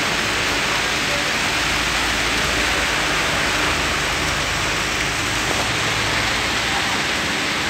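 Rain falling on a steel sheet roof, heard from beneath it as a steady, even hiss.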